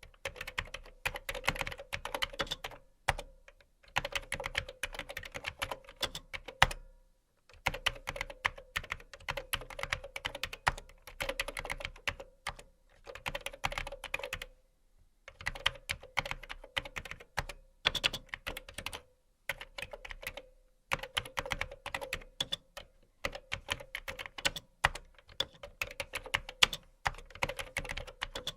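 Fast typing on a keyboard: rapid key clicks in runs of a second or two, broken by brief pauses.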